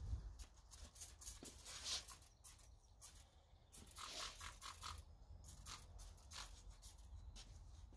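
Faint, irregular rubbing and wiping strokes of a cloth on engine-bay plastic trim as plastic restorer dressing is worked in, over a low background rumble.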